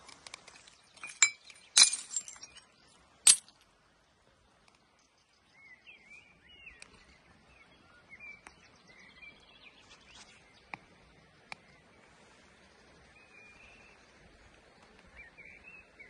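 Shards of broken glass bottles clinking and crunching, with several loud sharp clinks in the first few seconds. After that it goes quiet, with faint small-bird chirps and a few light ticks of glass.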